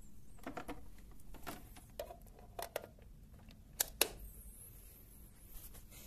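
Scattered handling clicks and knocks from an electric kettle's cord and plug being picked up and moved, then two sharp clicks close together about four seconds in as the plug is pushed into a wall socket.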